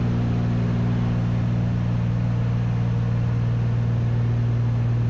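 Cessna 310 twin's engines and propellers droning steadily in level cruise, heard inside the cabin as a constant low hum over even noise.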